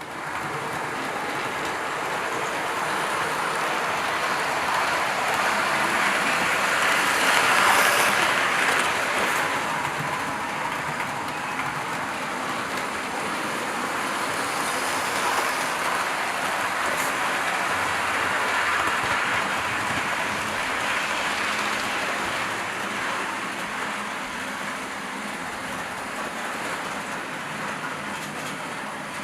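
Train running on rails: a steady rushing rumble of wheels on track that swells to its loudest about eight seconds in, then eases off.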